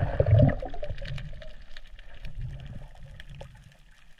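Underwater sound picked up by a camera on a diving spearfisher: muffled water rushing and gurgling as he swims down over the reef, loudest in the first second and then fading, with scattered faint clicks.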